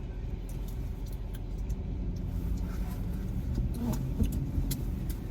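Car engine idling, heard from inside the cabin as a steady low rumble with a few faint ticks.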